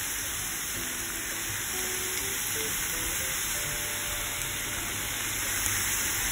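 Diced corn, carrot and zucchini sautéing in oil in a non-stick pan, sizzling with a steady hiss.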